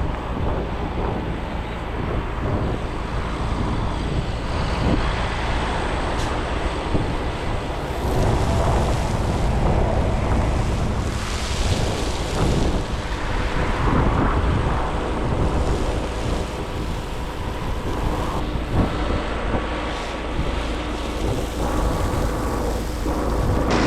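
Hydroseeder's engine running steadily, with wind buffeting the microphone.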